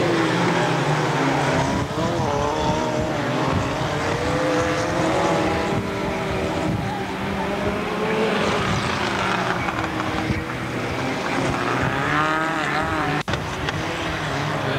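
Several Mini rallycross cars racing, their engines revving up and down as they accelerate, brake and pass, with a sharp click and momentary dropout about 13 seconds in.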